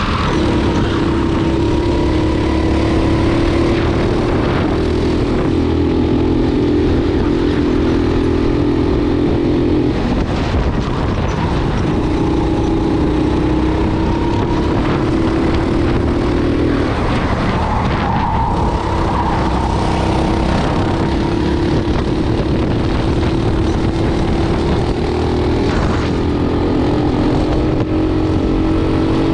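Racing kart's single-cylinder engine heard onboard at race pace, holding a steady pitch on the straights and falling briefly for corners about ten, seventeen and twenty-six seconds in, over constant wind and road rumble.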